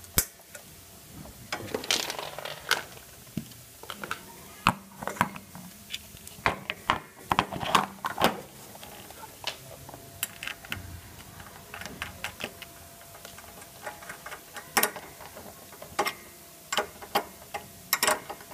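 Metal and plastic parts of a mower's front drive being handled and fitted by hand: irregular clicks, knocks and rattles of a pin, clip, axle and toothed drive wheel.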